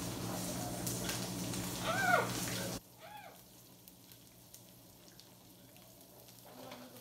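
Asparagus spears sizzling and crackling in oil in a frying pan, cut off suddenly about three seconds in, leaving only a faint low hum. A short rising-and-falling whine sounds about two seconds in.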